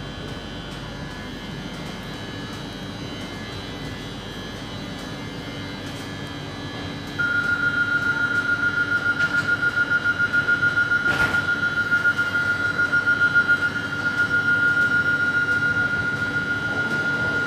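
Steady hum of a train standing at a station platform. About seven seconds in, a loud high-pitched electric ringing starts and keeps going with a fast pulsing rattle, typical of a departure warning signal.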